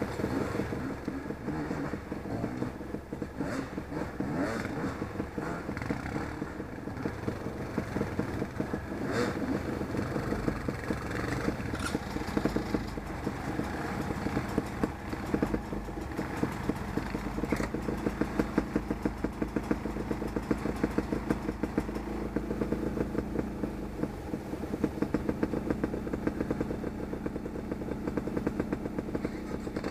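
Beta off-road motorcycle being ridden, its engine running with shifting revs, and sharp clacks coming often in the second half.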